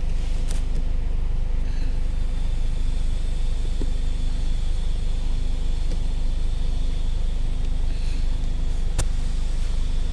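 Kia Sonet running at idle: a steady low rumble with a faint hum, and one sharp click about nine seconds in.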